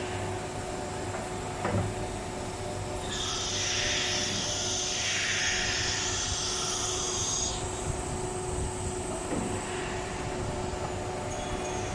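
Automatic tool changer CNC router running with a steady mechanical hum. A louder high hiss comes in about three seconds in and stops about seven and a half seconds in, and there are two faint knocks.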